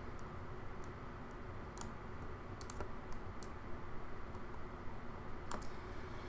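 A few sharp clicks at a computer desk, irregularly spaced, from a mouse and keyboard used for editing. Under them is a low, steady room hum.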